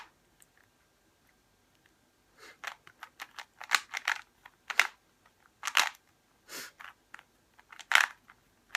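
Rubik's Cube being turned by hand: irregular quick clicking and clacking of the plastic layers as they are twisted, starting about two seconds in.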